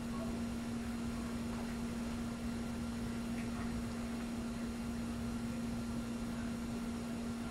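Steady electrical hum at a single pitch over a faint hiss: the background noise of a courtroom video recording.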